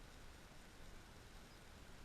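Near silence: a faint, steady outdoor background hiss with a low rumble.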